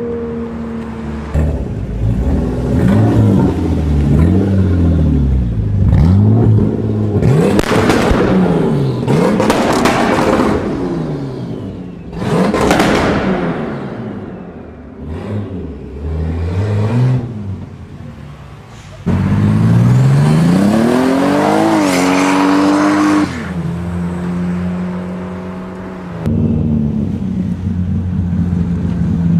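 Toyota Supra MK4's inline-six engine revved in a series of quick blips, each rising and falling in pitch. Then comes one long pull with the pitch climbing, followed by the engine running at a steady speed. Abrupt jumps in level, a couple of times, mark cuts between recordings.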